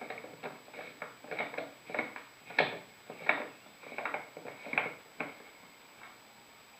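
Irregular clicks and knocks of a kayak accessory mount being handled and fitted into place on its base, about a dozen over five seconds with the sharpest knock a little before the middle, then stopping.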